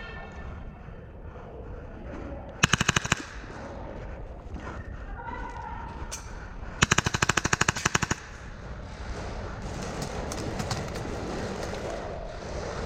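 Airsoft gun firing on full auto in two rapid bursts: a short burst about two and a half seconds in, then a longer one of about a second and a half near the middle.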